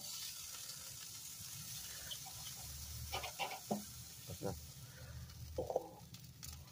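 Steaks sizzling on a charcoal grill grate, a steady hiss. A few short scrapes and clicks come about halfway through as a knife cuts into a steak on the grate.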